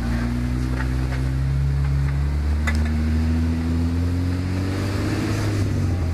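Jeep Wrangler engine running at low revs as it crawls over a rutted dirt trail. The pitch rises a little about halfway through and eases back near the end. One sharp click about two and a half seconds in.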